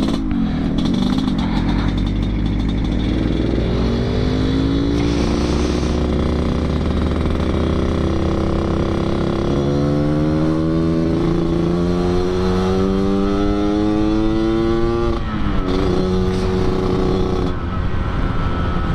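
Yamaha RX King 135 cc two-stroke single with an under-slung 'kolong' exhaust, accelerating through the gears with its raspy 'ngorok' growl. The engine pitch climbs steadily, drops sharply at a gear change about fifteen seconds in, then climbs again.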